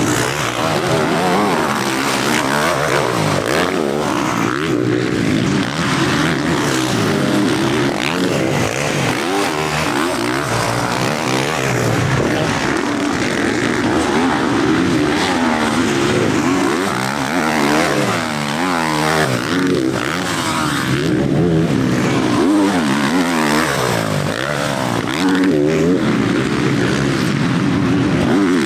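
Several motocross bikes racing, their engines revving up and down over one another in constant changes of pitch.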